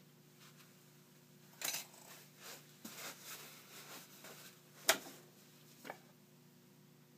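Scattered small clicks, clinks and rustles as a lock cylinder in a small bench vise is handled, with one sharp click about five seconds in.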